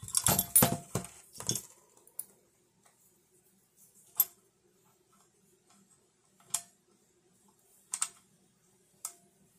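Small metal and plastic hardware being handled: a quick run of clicks and clatter in the first second and a half, then four single sharp clicks spaced a second or two apart as the mic adapter bracket and monitor-arm parts knock together.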